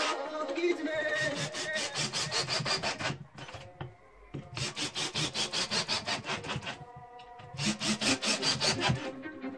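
Hand saw cutting wood in quick back-and-forth strokes, about five a second, stopping briefly twice before carrying on.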